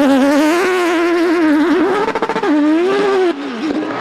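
Off-road racing car's engine revving hard, its pitch rising and falling with the throttle, with a sharp drop in pitch about two and a half seconds in. The sound falls quieter just after three seconds in as the car drives away.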